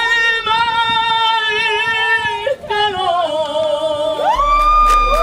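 A man singing a Spanish love ballad without accompaniment, holding one long note with vibrato and then sliding down on a second note. About four seconds in, a higher held voice comes in with a low hum under it.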